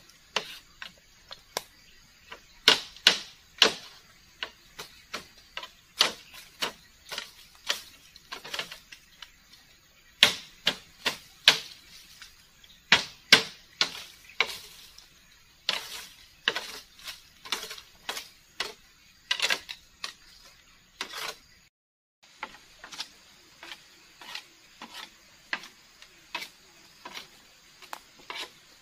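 Machete striking and chopping at debris on a split-bamboo platform floor: sharp, dry clacks at an uneven pace of one or two a second, briefly cut off a little past three quarters of the way through.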